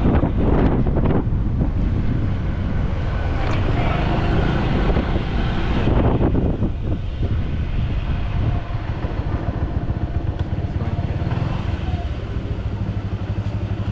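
Motorbike taxi scooter running on the move, heard from the pillion seat with wind buffeting the microphone. About eight and a half seconds in the wind noise drops and a steadier engine hum is left.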